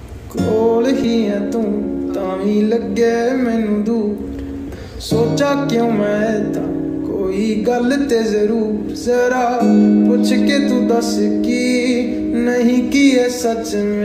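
Background music: a song with acoustic guitar and singing.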